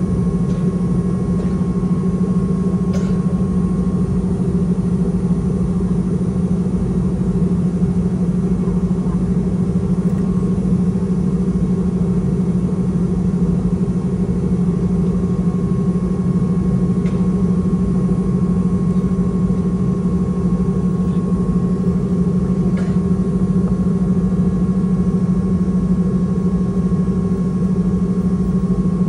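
Steady engine and airflow drone inside the cabin of a Boeing 717-200 airliner, its two tail-mounted Rolls-Royce BR715 turbofans giving a constant low hum with a thin higher tone over a rushing noise.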